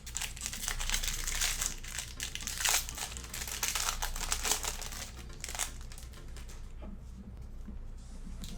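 Foil wrapper of a trading card pack being torn open and crinkled. The crackling fades to faint handling noise about six seconds in.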